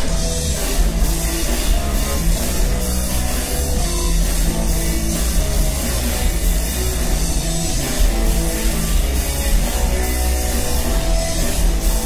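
Live rock band playing an instrumental passage: distorted electric guitars, bass guitar and drum kit, with a heavy bass.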